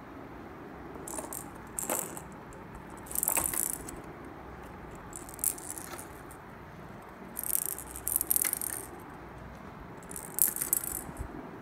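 Hard plastic balls clattering and rattling against a plastic pound-a-ball ramp toy, in about six short bursts with pauses between.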